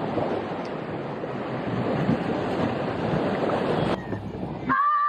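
Wind and sea rushing past a sailboat at sea as a steady noise, with wind buffeting the microphone. It cuts off shortly before the end, where a high pitched tone begins.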